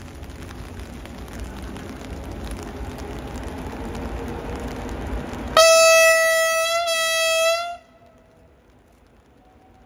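A railway locomotive's horn sounds one steady-pitched blast of about two seconds, with a brief hitch partway, and cuts off sharply. Before it, a rumbling rises as the train approaches.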